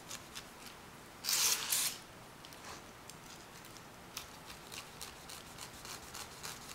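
Small kitchen knife cutting the flesh out of a halved pineapple, close to the rind: a run of short crisp scrapes and crunches as the blade works through the fibrous fruit, with one louder rasping scrape lasting about half a second a little over a second in.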